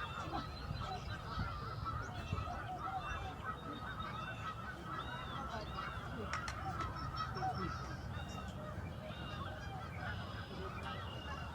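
A huge flock of wild geese calling all at once: a dense, unbroken chorus of overlapping honks, over a steady low rumble.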